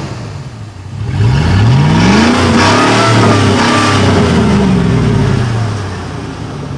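2003 Chevy Silverado engine revved once through its open electric exhaust cutout: from idle it climbs about a second in, holds high, then falls back to idle about five seconds in.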